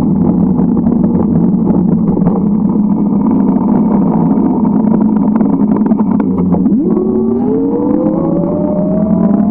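Steady drone of motor traffic heard from a moving bicycle. About seven seconds in, a vehicle's engine speeds up, its pitch rising steadily.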